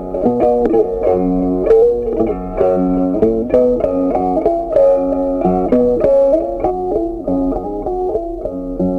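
Background music: a melody plucked on guitar, its notes following one another in quick succession.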